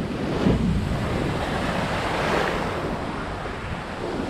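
Ocean surf breaking and foaming around a camera held at water level in the shallows, a steady rushing wash that swells about two seconds in, with wind buffeting the microphone.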